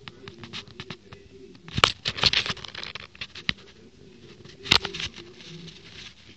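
A cat's nose and fur brushing against a phone's microphone, with close sniffing, sharp clicks and two loud bursts of rustling, about two seconds in and again near five seconds, over a low steady hum.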